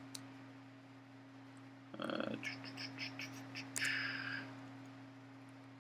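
Faint computer keyboard typing: a short run of keystrokes about two to three and a half seconds in, then a brief hiss, over a steady low hum.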